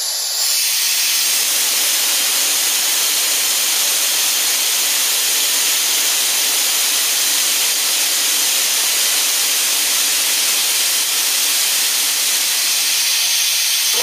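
Compressed air hissing steadily out of a 21-gallon Central Pneumatic air compressor tank through its opened ball valve. The tank is being bled down from about 110 psi toward the pressure switch's cut-in pressure.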